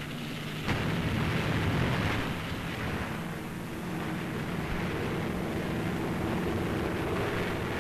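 Propeller warplane's engine at takeoff power together with the rush of its rocket-assisted takeoff units firing, a loud, steady roar with an engine drone beneath that jumps up suddenly about a second in.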